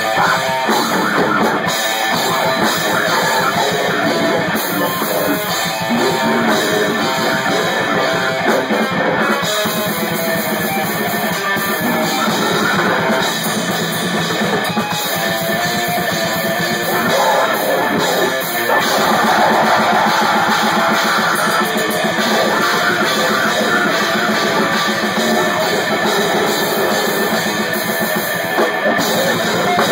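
Live rock music played loud: a drum kit with cymbals close up, with guitar alongside.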